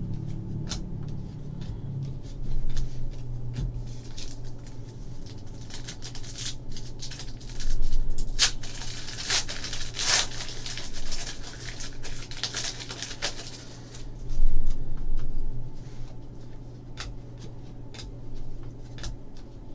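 2014 Panini Contenders football cards being handled and flipped one after another, with light ticks and slides of card stock. In the middle stretch a foil pack wrapper crinkles and tears open, the loudest part. A steady low hum runs underneath.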